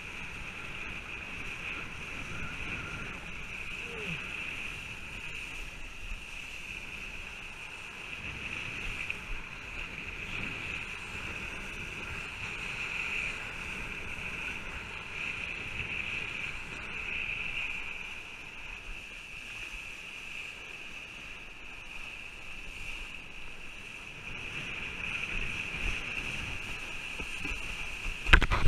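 Kiteboard skimming fast across choppy water, with water rushing and spraying past the rider-mounted camera as a steady high hiss over a low rumble. A sharp knock near the end.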